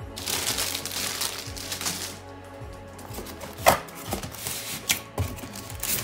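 Background music, with packaging being handled over it: plastic wrapping crinkling for the first two seconds, then a few sharp knocks and scrapes of the styrofoam packing insert.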